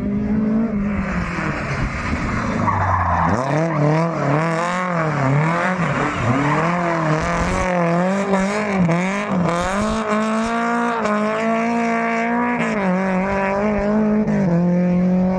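A Lada saloon's engine revving hard while drifting, its pitch rising and falling again and again, with tyre squeal and skidding. The revs hold steadier over the last few seconds.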